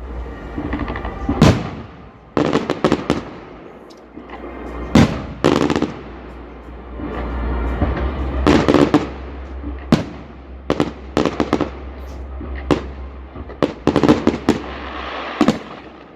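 Fireworks display: bangs and crackling bursts going off in quick clusters, with a steady low rumble between them.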